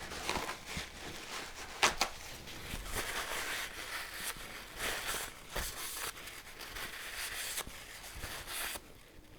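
Flat back of a steel bevel-edge chisel rubbed back and forth on a wet 4000 grit Japanese waterstone, a scratchy rubbing with a few clicks, polishing the back; it stops about 9 seconds in.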